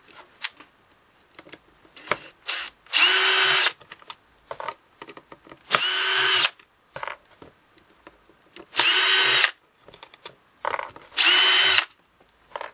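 Cordless drill-driver backing out the screws of a plastic battery-pack case: four short runs of the motor, each under a second, with small clicks and handling taps between them.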